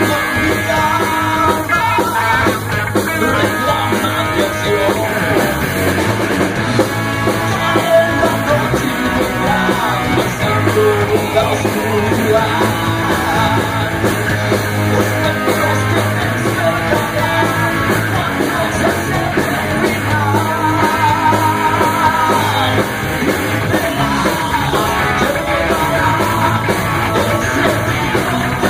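Live hard rock band playing loud: electric guitars, bass guitar, drum kit and keyboards, with a lead singer.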